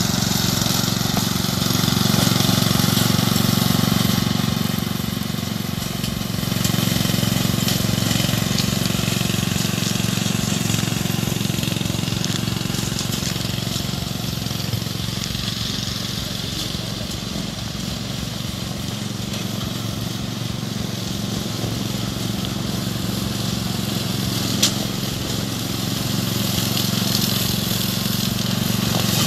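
Orec RM85B ride-on mower's engine running steadily as it cuts through tall grass, fading as the mower moves away and growing louder again near the end. A single sharp click about 25 seconds in.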